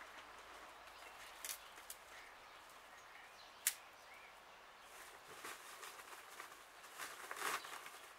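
Quiet outdoor yard ambience with a few scattered light clicks, one sharp tick a little past three and a half seconds in, and soft scuffing or rustling sounds in the last few seconds.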